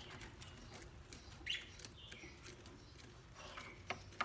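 Faint, short chirps and squeaks from a parrot, several scattered calls, with a few sharp clicks near the end.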